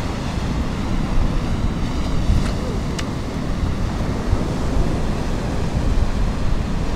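Ocean surf breaking and washing up a rocky beach, a steady rush with wind buffeting the microphone. Two faint sharp clicks about two and a half and three seconds in.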